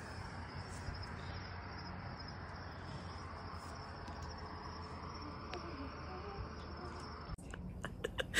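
Crickets chirping in a steady high trill over a low hum. Near the end the sound breaks off into a few clicks and rustles.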